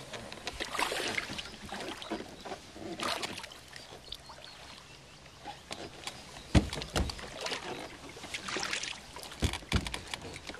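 Lake water lapping and sloshing against a Canadian canoe's hull, then about four low knocks on the hull in the second half as a paddler steps into the canoe and settles his weight.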